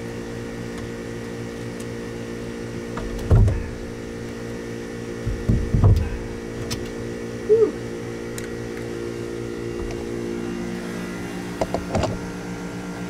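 A steady machinery hum of several pitches, with a few knocks and clunks from parts and tools being handled at a marine generator, and one short squeak about halfway through.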